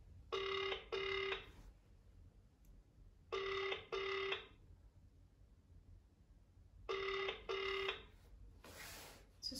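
Telephone ringback tone over a phone's loudspeaker: three double rings, each two short beeps, about three seconds apart, in the double-ring cadence used on South African lines; the call is ringing and not yet answered. A short burst of noise near the end.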